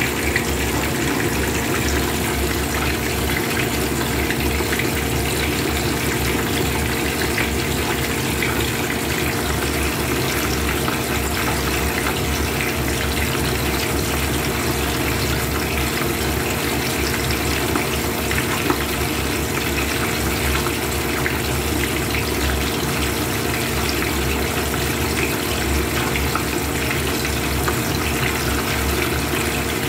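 Whole fish deep-frying in a pan of hot oil: a steady, dense sizzle and crackle of bubbling oil, with a faint low hum underneath.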